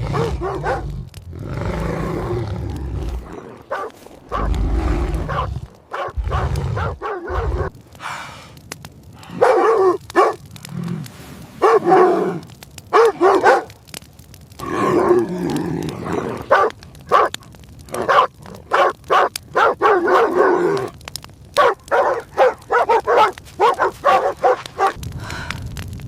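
Dogs barking again and again, in quick runs of short barks through the second half. A low rumble runs under the first few seconds.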